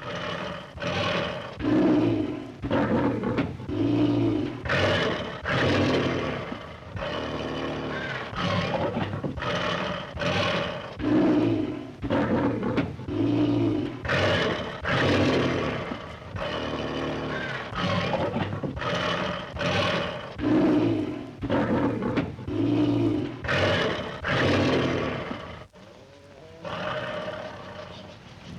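Lions roaring: a long run of loud roars, each about a second long, one after another roughly every second, briefly dropping away near the end.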